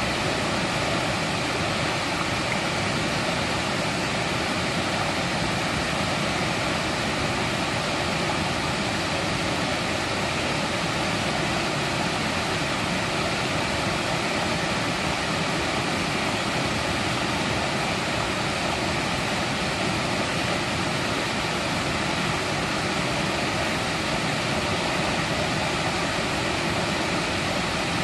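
Mountain stream flowing over rocks: a steady, even rush of water with no breaks.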